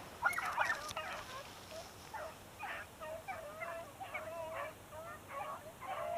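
A pack of rabbit dogs baying as they run a rabbit's trail, many overlapping pitched cries, some of them drawn out into howls.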